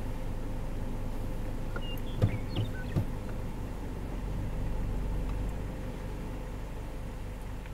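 A vehicle engine idling steadily, with three short, sharp sounds about two to three seconds in.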